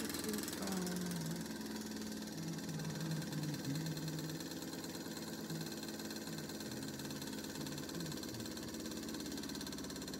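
A Mamod TE1A model steam engine with a single oscillating cylinder, converted to a portable engine, running steadily under steam with a rapid, even chuffing. It is driving model workshop line shafting by belt.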